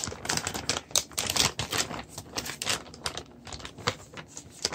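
Anti-static plastic bag around a graphics card crinkling and crackling in the hands as it is worked open, with a quick run of irregular sharp clicks and a louder snap right at the start.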